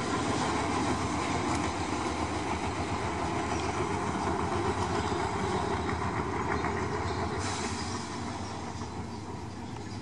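Diesel-electric locomotive running light, its engine running and its wheels clicking over rail joints. The sound gets quieter near the end.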